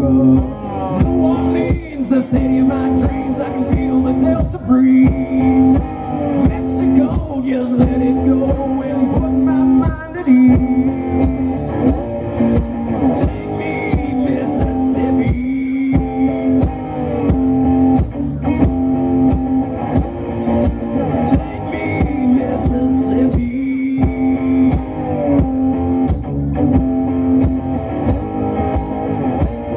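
Live electric guitar played through an amplifier, with a steady beat under it and a man singing in places.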